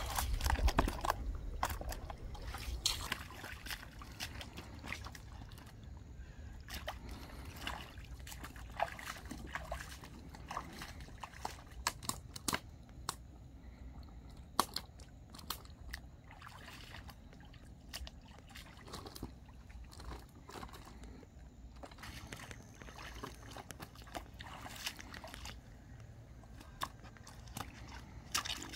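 Sloshing and splashing in shallow muddy water as someone gropes for fish by hand and wades through it, with many scattered sharp clicks and knocks. It is loudest in the first couple of seconds.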